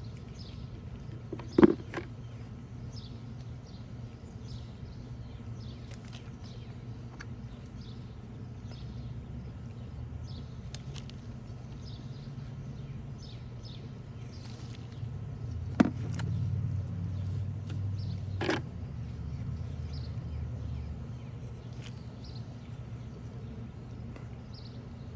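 Steady low rumble of distant traffic, swelling for a few seconds as a vehicle passes about two-thirds of the way through, with faint bird chirps and three sharp knocks.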